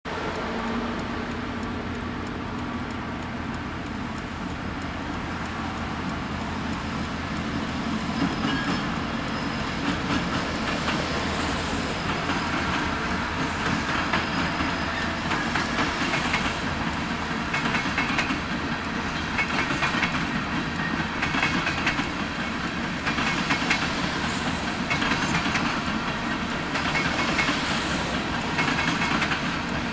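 Freight train crossing a trestle bridge. A steady rumble builds from about eight seconds in, and the wheels of the freight cars clatter over the rails in a regular rhythm, a burst every couple of seconds.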